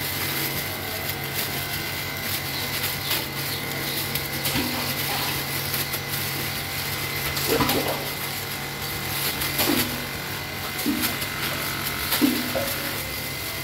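Steady electric hum of a well's jet water pump motor running, with light crackling of a plastic bag being handled.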